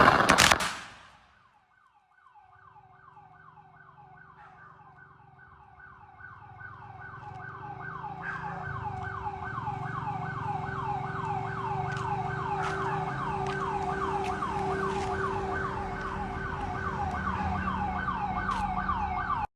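The last rapid cracks of a firecracker string stop about a second in. Then an electronic siren starts, a fast wail of falling sweeps about three a second over a steady low tone, growing louder for several seconds before holding steady.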